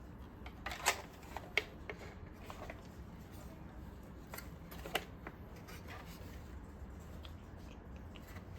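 Several light, sharp clicks and taps of hard plastic being handled and pried at, scattered irregularly over a low steady hum.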